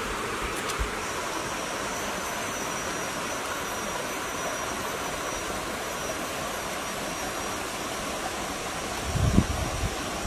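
Steady outdoor rushing noise with no clear source, and a faint steady high tone through the middle. Low wind buffeting hits the microphone near the end.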